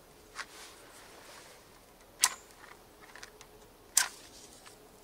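Matches struck against the side of a matchbox: two sharp scratches, about two seconds in and again about four seconds in, with small clicks of handling between.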